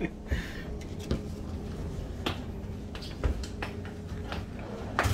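Scattered light clicks and knocks from a hotel wardrobe door being handled and closed, over a steady low hum. A louder thump comes near the end.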